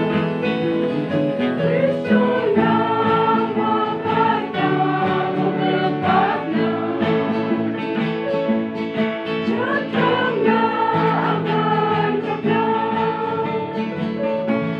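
A choir singing a Garo-language gospel hymn together, accompanied by acoustic guitars.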